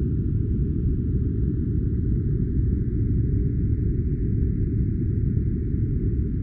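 Steady, deep noise track of the sleep-sound kind: a muffled, even rumble-hiss with the high end cut away, unchanging throughout.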